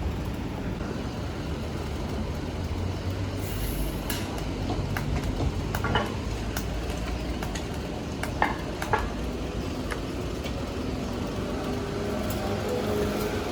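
Electric arc welding on a steel tube: a steady crackling sizzle with a few sharp pops.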